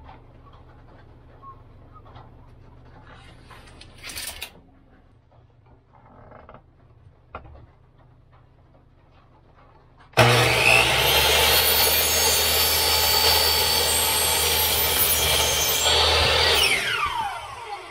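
Metabo HPT C10FCH2 10-inch compound miter saw switched on about ten seconds in, running steadily while its blade is lowered slowly through a taped cellular window blind, then winding down with a falling whine near the end. Before it starts there are only quiet handling sounds and a brief rattle.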